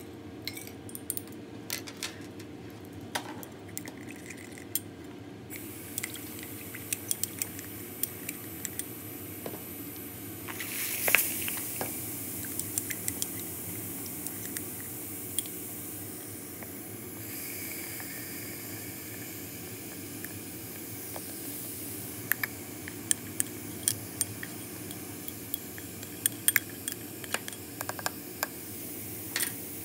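Steady hiss and hum of vacuum suction drawing through a Büchner funnel during vacuum filtration, with sharp clinks of glassware throughout. About eleven seconds in there is a short louder rush as liquid is drawn through the filter paper, and near the end a cluster of clinks as a beaker is tipped over the funnel.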